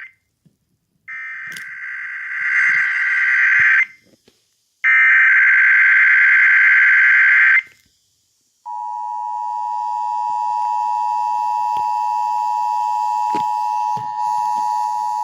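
Emergency Alert System Required Monthly Test tones: two harsh, warbling SAME digital header bursts of about three seconds each, then, about nine seconds in, the steady two-tone EAS attention signal begins and holds.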